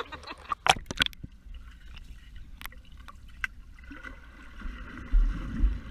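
Pool water splashing at the surface, then the muffled sound of a swimming pool heard with the camera underwater, with scattered clicks and a loud low rumble near the end.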